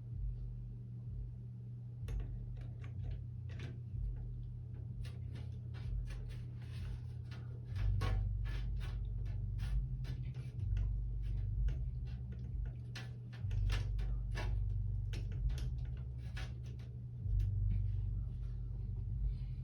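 Screwdriver driving the screws that hold a motherboard into a PC case: many small irregular clicks and metal scrapes. A steady low hum runs underneath.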